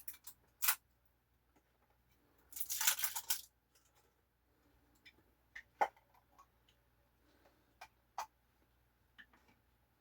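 Packaging crinkling for about a second a few seconds in, followed by scattered light clicks and taps.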